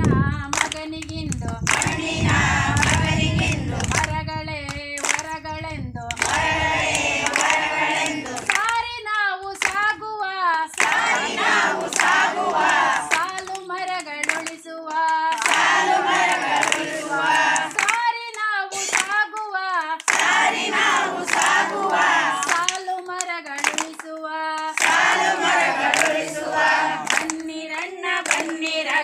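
A group of voices singing a Kannada song together, the long notes wavering in pitch, with hand clapping along.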